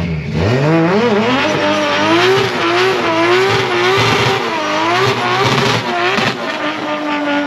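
Car engine revving hard, the note swooping up and down as the rear tyres spin and squeal in a smoky drift, then holding steady near the end.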